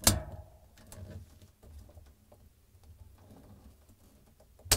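Side cutters snipping through plastic zip ties: a sharp snap right at the start and another near the end, with faint rustling of wires and handling in between.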